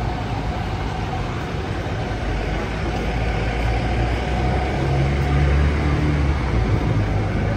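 Steady city street traffic noise with a double-decker bus engine running close by; its low rumble swells for a couple of seconds about two-thirds of the way in.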